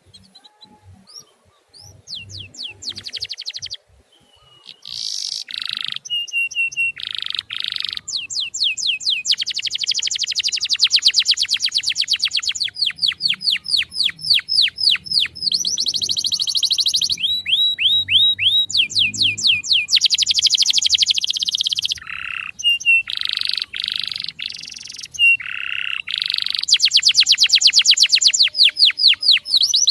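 Male canary singing: a run of phrases, each a fast trill of the same high note repeated many times a second, mostly quick downward-sweeping chirps, switching to a new note type every second or two.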